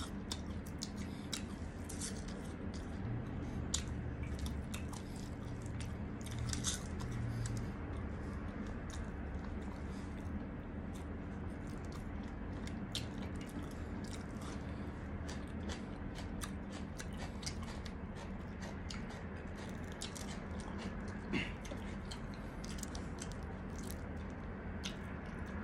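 Close-up chewing and biting of breadcrumb-coated deep-fried chicken and crispy egg, with many small, sharp clicks from the crisp crust. A steady low hum runs underneath.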